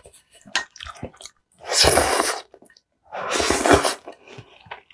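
Close-miked eating over hot noodle soup: small wet chewing and mouth clicks, with two long airy mouth sounds each under a second, the first near two seconds in and the second about a second later.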